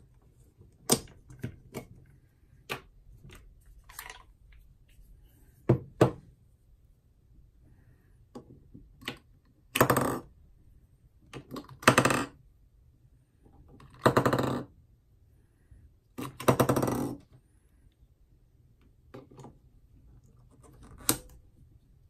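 Handling clicks and knocks from an underwater strobe's battery compartment and its AA cells: the rechargeable batteries clink together and are tipped out and dropped back in, and the battery cap is worked open and shut. Scattered sharp clicks, with four longer rattling scrapes of about half a second to a second near the middle.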